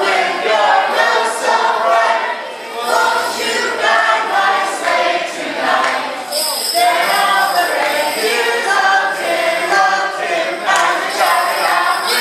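A group of children and adults singing a Christmas song together, with jingle bells shaking along.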